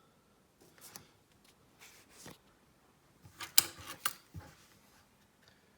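A few short clicks and rustles of small objects being handled. The loudest come in a cluster about three and a half to four and a half seconds in.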